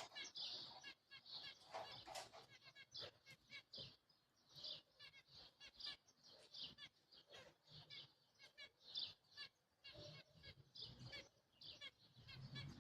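Small birds chirping and twittering in quick, short high notes, several calls overlapping.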